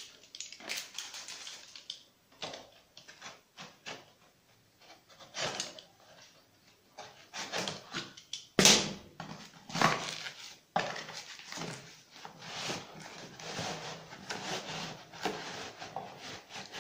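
Clear plastic packaging crinkling and rustling in irregular bursts as a tripod is pulled free of its wrapping, with one louder crackle about halfway through.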